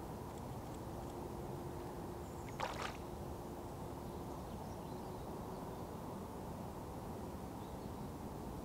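Steady hum of distant road traffic, with a single short swish about two and a half seconds in.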